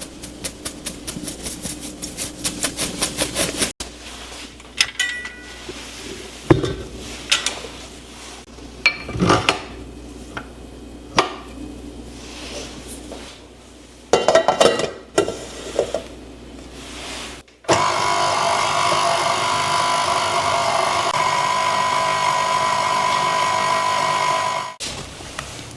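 Baking preparation sounds: a rapid run of even clicks, then scattered knocks and clatter of utensils. Then an electric mixer runs steadily with a whirring hum for about seven seconds and cuts off near the end.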